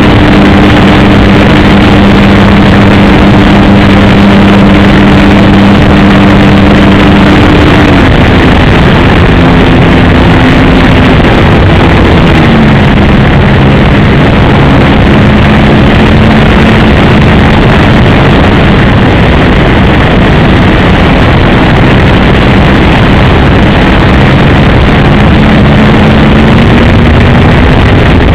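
RC Piper J-3 Cub model airplane's engine running in flight, its pitch stepping down about a third of the way in and wandering up and down after that. It sits under a loud, rough, distorted rush of noise.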